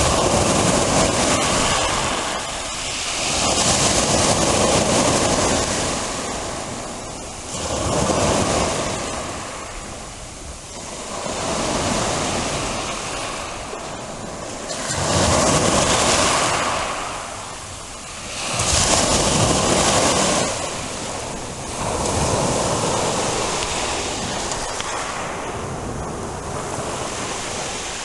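Black Sea waves washing onto the shore, the surf swelling and falling back in surges every three to four seconds.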